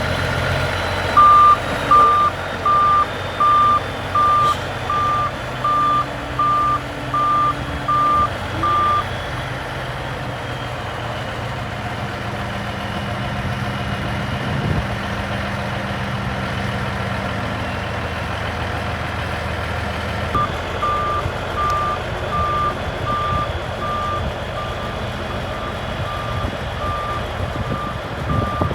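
Bulldozer's diesel engine running under load while its reversing alarm beeps steadily, a little over once a second, as it backs up. The beeping stops for about eleven seconds in the middle, leaving the engine alone, then starts again near the end.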